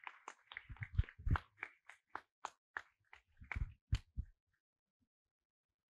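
A run of faint, sharp taps, about three a second, with dull thumps under some, stopping a little after four seconds in.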